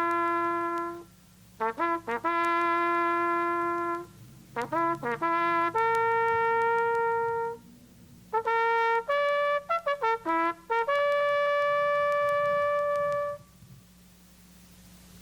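A solo bugle call played on a brass horn: four phrases, each a run of quick short notes leading into a long held note, ending about thirteen seconds in.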